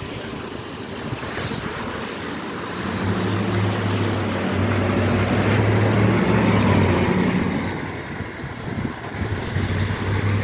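Nova Bus city bus passing close and pulling away on a wet street: a low, steady engine hum over the hiss of tyres on wet pavement, loudest about six seconds in as the bus goes by, with wind on the microphone.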